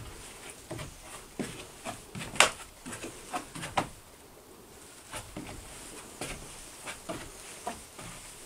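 Irregular knocks and taps of hands catching and shifting on narrow cliffhanger ledges bolted to a wooden frame, the loudest knock about two and a half seconds in.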